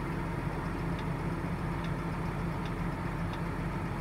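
Tractor engine idling steadily, heard from inside the cab, with four short high beeps about a second apart from the Topcon X30 touchscreen as letters are typed on its on-screen keyboard.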